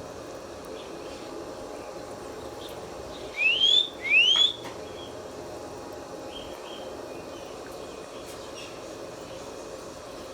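Indian ringneck parrot giving two short rising calls in quick succession, about three seconds in, over a steady background noise.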